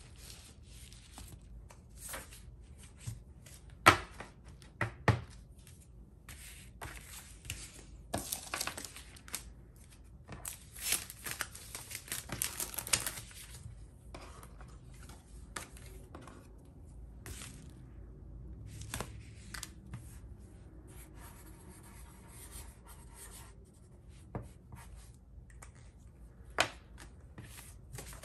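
Clear plastic sleeves and paper cards rustling and crinkling as they are handled, with a dense stretch of crinkling from about eight to thirteen seconds in. A few sharp taps stand out, the loudest about four seconds in.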